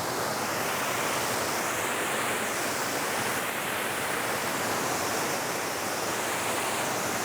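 Waterfall cascading over rock: a steady, even rush of falling water.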